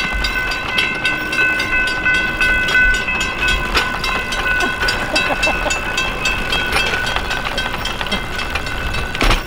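Railroad grade-crossing warning bell ringing steadily, a fast run of repeated strikes with a sustained ringing tone, as the crossing gate is brought down for rail bikes to cross the street.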